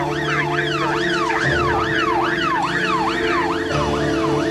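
Emergency vehicle siren in a fast yelp, its pitch sweeping up and down about three times a second, from a doctor's blue-light response car on a call. A steady lower hum runs underneath.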